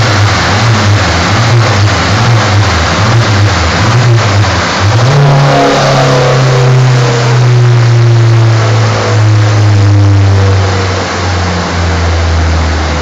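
Ford Escort RS Turbo's turbocharged 1.6 four-cylinder engine running loud under load on a rolling road, over a steady rushing noise. Its note wavers for the first few seconds, jumps up about five seconds in, then falls steadily in pitch over the next six seconds.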